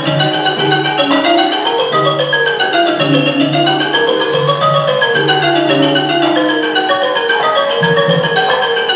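Ranat ek, the Thai boat-shaped xylophone, played solo in fast running lines of notes that climb and fall. A hand drum sounds underneath, and a light high tick keeps the beat.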